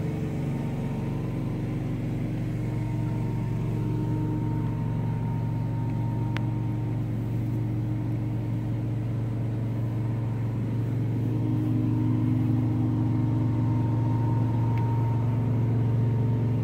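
Truck-mounted carpet cleaning machine running with a steady, even engine drone, a little louder in the second half.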